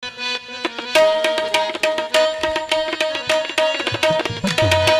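Instrumental qawwali opening: harmonium playing a repeated melody over fast tabla drumming, with deep bass drum strokes coming in about four seconds in.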